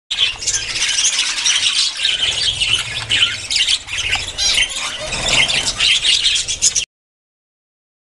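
A large flock of spangle budgerigars chattering and squawking all at once: a dense, unbroken din of overlapping chirps and screeches. It cuts off suddenly about seven seconds in.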